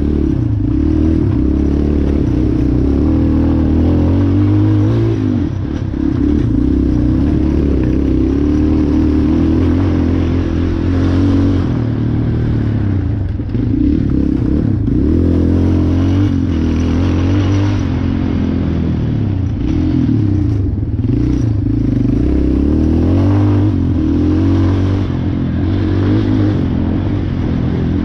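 Race ATV engine running hard through a cross-country course, its pitch climbing and dropping over and over as the rider throttles, shifts and backs off, with a few brief dips in the engine note.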